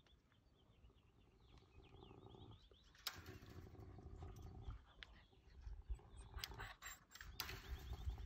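Faint low growling from an African civet caught in a barbed-wire fence, starting about three seconds in, with a few sharp clicks and rustles near the end.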